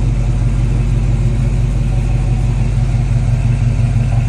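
Classic Chevrolet car engine running steadily with a deep, even low rumble.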